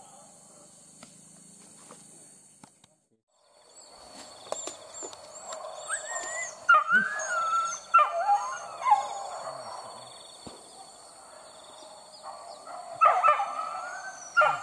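Leashed boar-hunting dogs whining and yelping in high cries that slide up and down in pitch. The cries come in bursts from about four seconds in, loudest around six to nine seconds and again near the end.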